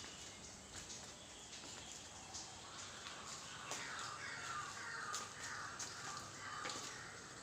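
Faint bird calls, crow-like caws, over quiet outdoor background with a few small clicks.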